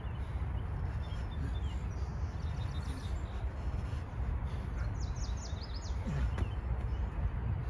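Small birds chirping in short runs of quick high notes, over a steady low rumble.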